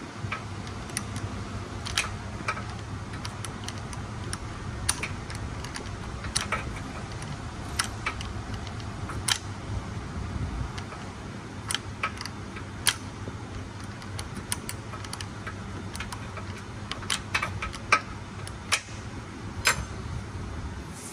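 Hand tools and metal fasteners clicking and clinking irregularly as parts are worked loose, with sharp ticks every second or so over a low steady hum.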